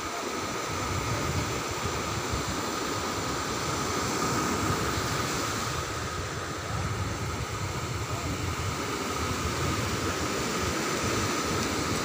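Sea surf breaking and washing up on a sandy beach: a steady rushing noise with a low rumble.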